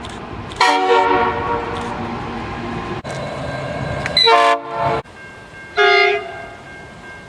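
Train horns sounding in three separate blasts: a long one near the start, a two-part blast about four and a half seconds in, and a short one about six seconds in, each a chord of several steady tones. A steady train rumble runs between them.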